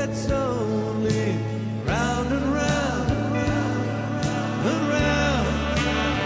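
Background music: a country-rock style song with a sung or guitar melody over steady bass and a beat.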